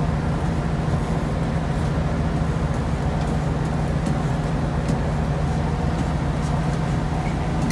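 Boat engine running steadily: a constant low drone.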